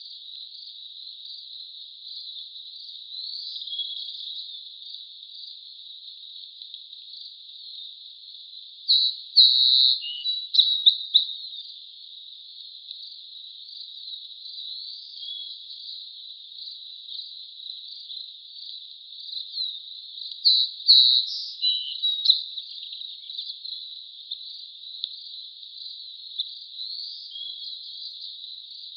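Steady high-pitched chorus of chirping insects such as crickets, with two short spells of louder chirping calls, about nine seconds in and again about twenty seconds in.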